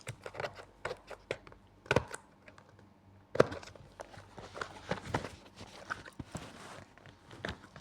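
Plastic packaging being handled and torn open: a run of crinkles and small clicks, with two sharper knocks about two and three and a half seconds in.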